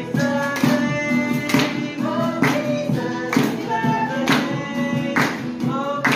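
A group of young people singing along to a strummed acoustic guitar, with hand claps keeping a steady beat about twice a second.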